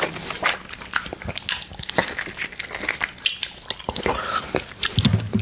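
Close-miked wet mouth sounds: biting and sucking on a juicy orange slice, then a tongue licking a glass plate, with many small wet clicks and smacks. A brief low hum comes from the mouth near the end.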